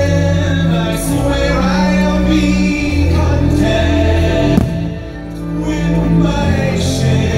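Fireworks-show soundtrack: orchestral music with a choir singing long sustained notes. A few sharp bangs from fireworks bursting cut through the music, about a second in, around the middle and at the end.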